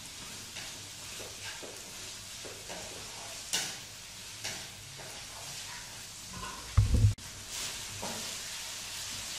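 Chicken and vegetables sizzling in a wok while a wooden spatula stirs and scrapes through them, in a string of short scrapes. A dull low thump about seven seconds in is the loudest sound.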